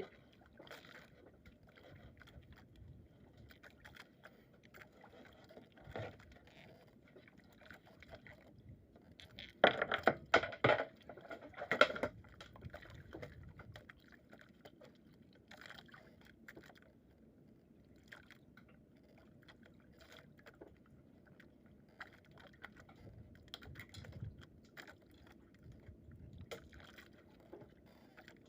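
Water lapping quietly, with a quick cluster of loud splashes and knocks about ten to twelve seconds in.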